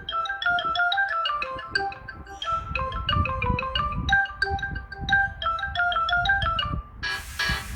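Samsung Galaxy Tab A11 playing a ringtone from its 'Fun' set: a quick melody of short mallet-like notes, with a beat joining underneath about two and a half seconds in. Near the end a different, brighter ringtone starts.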